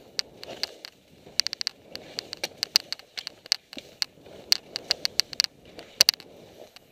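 Skis swishing through snow in repeated swells, turn after turn, with frequent sharp clicks and rattles over it, which are the loudest sounds.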